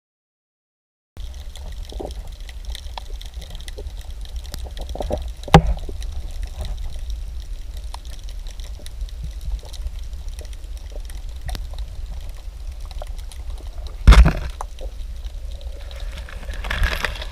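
Water sloshing and trickling around a kayak, over a steady low rumble with scattered small clicks. Two sharp knocks come about five and a half seconds in and again about fourteen seconds in.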